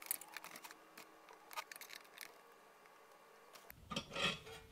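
A few faint small clicks and scrapes as a screwdriver turns the little calibration adjustment controls inside a Heathkit IM-11 vacuum tube voltmeter, with a soft rustle of handling near the end.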